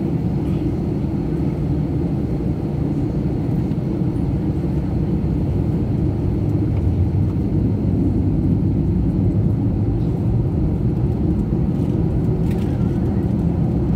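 Steady low rumble inside a jet airliner's cabin while the aircraft is on the ground, from its engines and air systems running.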